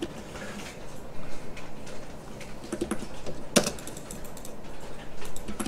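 Scattered clicks of a computer mouse and keyboard at a desk, with one sharper click about three and a half seconds in.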